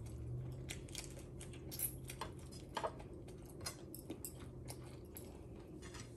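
Quiet eating sounds: chewing and small scattered clicks and taps as fingers pick food from a plate, over a low steady hum that stops about five seconds in.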